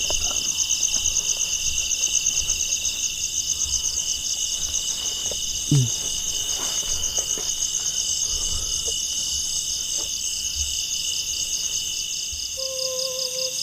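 Dense chorus of forest insects at dusk, a steady fast pulsing trill high in pitch. About six seconds in there is one brief, loud falling sound, and near the end a steady low hooting tone joins.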